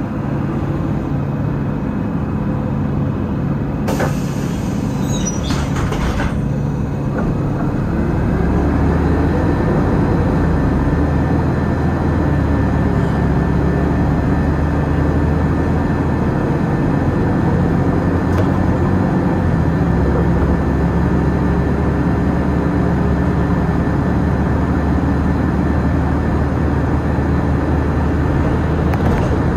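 Inside a city bus: the engine idles at a stop, with a few sharp clunks and a hiss about four to six seconds in, typical of the doors closing. Then the engine note rises as the bus pulls away, and it runs on steadily with engine and road noise.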